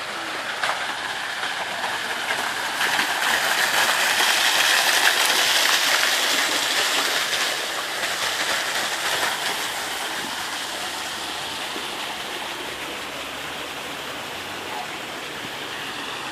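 Rushing water: a steady, even rush of noise that swells from about three seconds in and eases back after about nine seconds.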